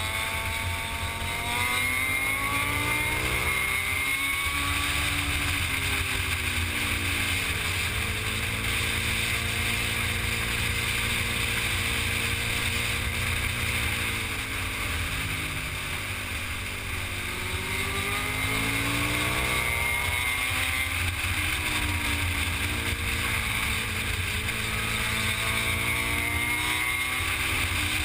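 Motorcycle engine heard from on board while riding, its revs climbing and dropping several times through the bends, with wind rushing over the microphone.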